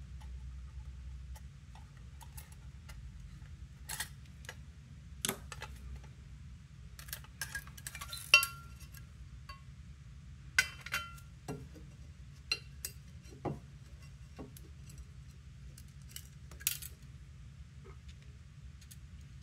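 Scattered light clicks and short metallic clinks from tiny screws, a small screwdriver and an aluminium enclosure and its panel plates being handled on a desk, a few ringing briefly; the loudest clink falls a little before the middle.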